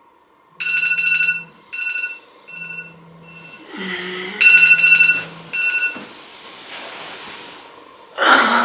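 An alarm ringtone beeping in a run of short, high-pitched bursts, with a low groan about four seconds in. Near the end comes a loud, breathy yawn as a person stretches on waking.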